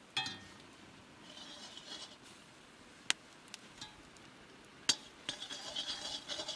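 Metal spoon stirring greens in a metal cooking pot, clinking and scraping against the pot: a few sharp single clinks, then a quick run of scrapes and clinks near the end.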